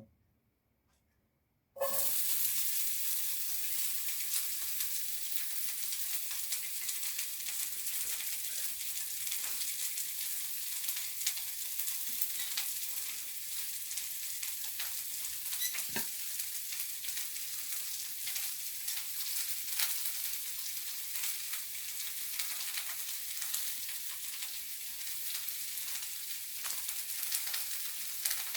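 Chopped onion going into hot sunflower oil in a frying pan about two seconds in, cutting off near silence. The onion then fries with a steady sizzle, with a few light clicks.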